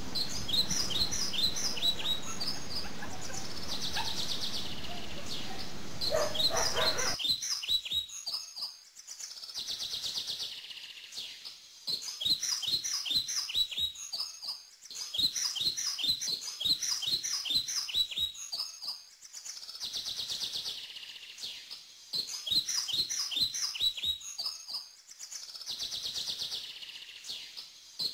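Birds chirping in repeated bursts of quick, high, downward-sweeping notes every few seconds. A steady background hiss under the chirps cuts off suddenly about seven seconds in.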